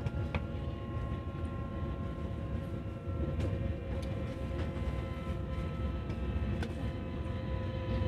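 CRH1A high-speed electric multiple unit running at steady speed, heard inside the coach: several steady whining tones from the traction motors and their VVVF inverter over a low rumble of wheels on the track, with a few faint clicks.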